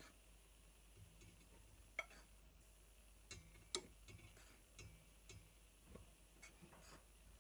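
Faint, irregular light clicks and taps of a kitchen utensil against a mixing bowl while flour is added to dough, with near silence between them.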